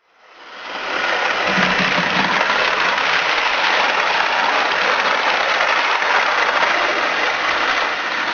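Hornby OO-gauge InterCity 125 model train with seven Mark 3 coaches running past: a steady mechanical noise from the wheels on the track and the electric motor. It swells in over the first second, then holds steady.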